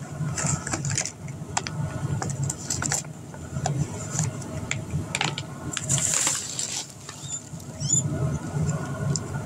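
Carded toy packaging, plastic and card, being handled: scattered sharp clicks and crinkles, with a longer rustle about six seconds in.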